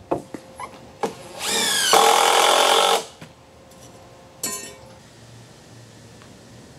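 A cordless power tool runs for about a second and a half. Its motor whine rises in pitch, holds steady, then stops abruptly. A few light knocks come before it, and a sharp click follows about four and a half seconds in.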